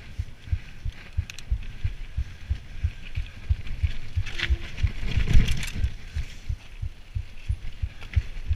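Mountain bike rolling down a rough dirt trail: a steady run of low thumps and knocks, about four a second, as the bike jolts over the ground. A louder rattle comes about four to six seconds in.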